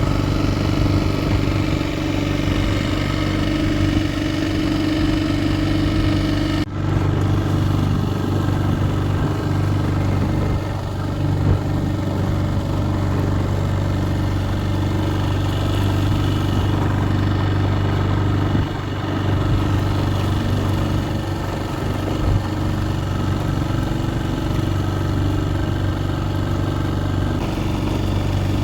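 An engine running steadily at a constant speed, with a brief break about seven seconds in.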